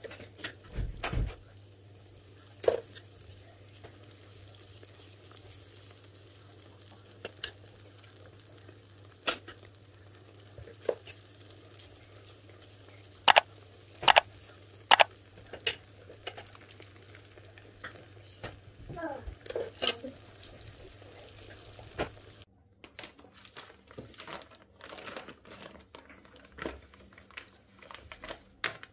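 Pişi batter frying in hot oil in a nonstick pan, a steady faint sizzle, with a metal spoon clinking against the pan now and then, three loud clinks about halfway through. In the last several seconds a plastic zip-lock freezer bag crinkles as it is handled.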